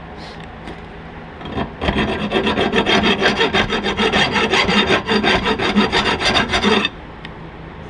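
A hand tool working on metal: a rapid, even rasping rhythm of about eight strokes a second that starts a second and a half in and stops about a second before the end.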